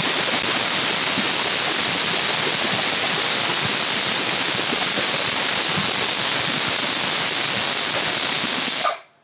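Pressure cooker whistle: a loud, steady hiss of steam escaping through the weight valve, cutting off suddenly near the end as the venting stops.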